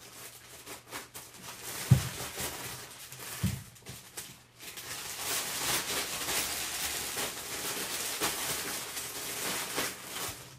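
Fabric rustling as a dark garment is folded, with two dull thumps about two and three and a half seconds in, the first the loudest. Then a clear plastic bag crinkles steadily as it is handled.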